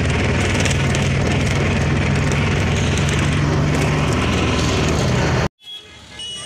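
Engine of an open-sided passenger vehicle running steadily with road and wind noise, heard from on board, with a strong low hum. It cuts off suddenly near the end, giving way to quieter street sound with a high steady tone.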